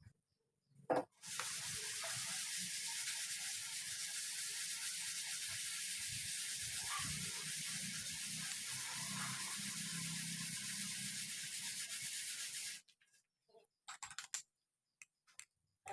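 A short knock, then a steady hiss of pressurised air or spray from a nozzle lasting about eleven seconds, which cuts off sharply near the end.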